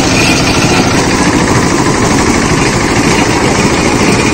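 Small single-cylinder diesel engine running steadily with a rapid, even beat, belt-driving a roller sugarcane juice crusher.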